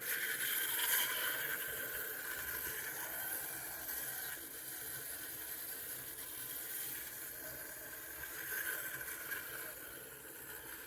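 Clockwork motor of a wind-up toy bus whirring steadily as the bus runs along its plastic track. It starts abruptly and grows gradually fainter.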